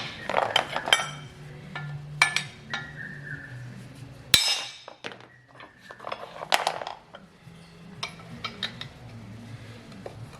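Metal parts clinking and tapping as drum-brake shoes, springs and retainer clips are handled and fitted by hand, with one sharper metallic knock about four seconds in.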